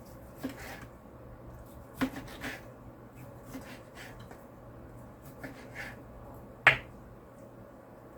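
A knife knocking on a cutting board while raw chicken breast is cut into strips: a handful of irregular sharp knocks, the loudest about two-thirds of the way through.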